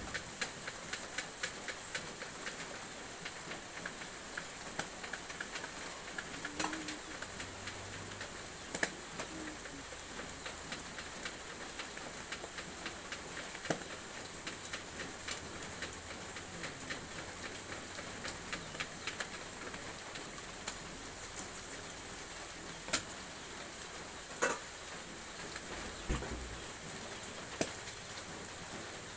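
Cooking over wood-fired clay stoves: a steady sizzling hiss from the wok over the fire, with scattered crackles and a few louder pops from the burning wood.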